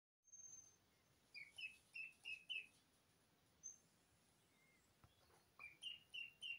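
Baby poultry peeping, from Sablepoot bantam chicks and an Indian Runner duckling: quick runs of four or five short, soft peeps, with a thinner, higher peep or two in between.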